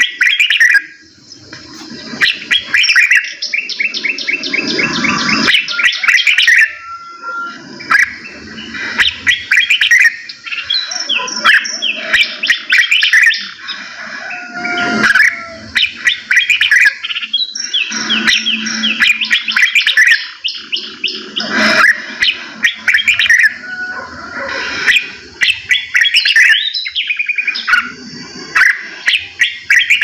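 Songbirds chirping and singing, several overlapping, in fast trills and sharp repeated calls broken by short pauses.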